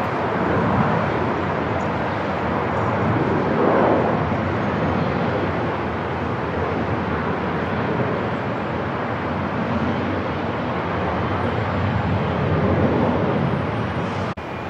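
Steady airport ambience noise dominated by the rumble of aircraft engines. It swells briefly about four seconds in and again near the end, with a short sharp dropout just before it ends.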